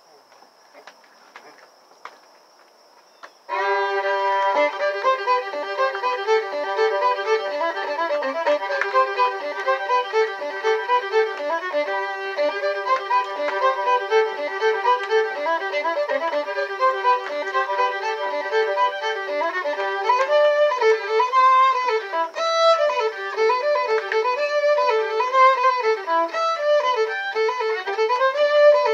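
Solo fiddle striking up an old-time dance tune about three and a half seconds in, bowing a moving melody over a steady drone note. Before it starts, only faint insect trilling.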